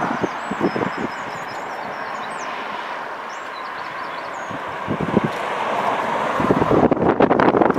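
Diesel-hauled freight train of Tara Mines ore wagons running past: a steady rumble with irregular clattering that builds up near the end. Small birds chirp faintly in the first half.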